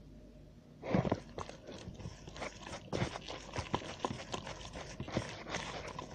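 A hand mixing a wet, sticky panettone dough of flour, sugar, eggs, milk and water, making irregular wet smacks and squelches that start about a second in.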